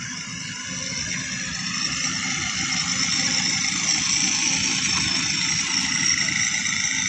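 Battery-powered children's ride-on toy motorbike driving over brick paving: a continuous rough rumble with a steady high whine, growing louder toward the middle as it passes close.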